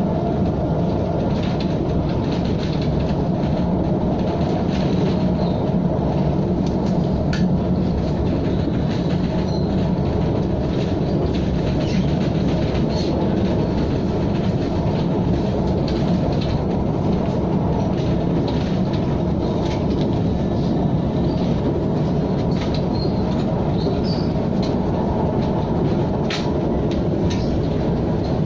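KTM ETS electric train running steadily along the track, a continuous rumble of wheels and running gear with a few faint clicks.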